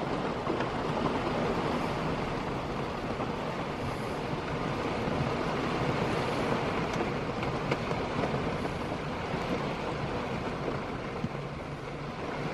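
Heavy downpour of rain, a tropical-type cloudburst, falling steadily as a dense, even hiss, with a few faint drip ticks.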